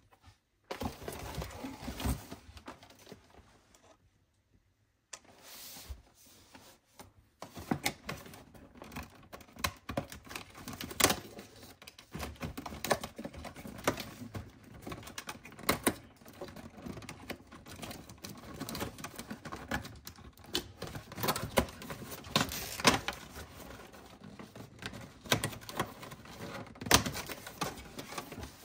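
Long fingernails tapping and scratching on a cardboard advent calendar as its paper doors are pressed in and torn open: a dense run of crisp clicks, taps and crinkles, with a brief pause about four seconds in.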